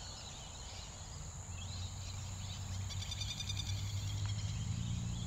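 Outdoor evening ambience in an open field: a steady high hiss, a short rapid chirping trill about three seconds in, and a low hum that grows louder toward the end.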